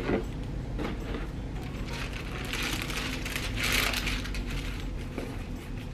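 Packaging and wrapping rustling and crinkling as a new handbag is handled out of its box, with a couple of light knocks near the start and the rustling loudest in the middle.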